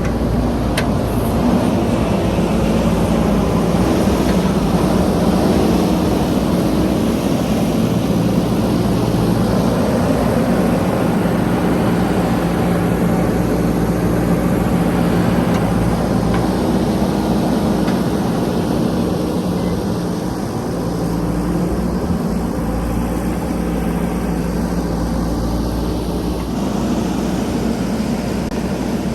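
JCB 3DX backhoe loader's diesel engine running steadily under load, with a slight drop in level about two-thirds of the way through.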